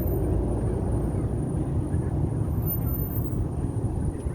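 A steady low rumble with no clear rhythm or pitch.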